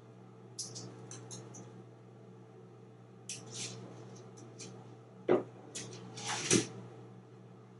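Light clicks and scrapes of an African grey parrot's feet and beak on the plastic top of a TV as it climbs down behind it, with two louder knocks about a second apart in the second half.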